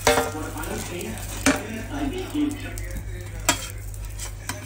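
Metal spatula scraping and knocking against a dosa pan and a steel plate as an egg dosa is served. There are three sharp metal clinks over a light sizzle.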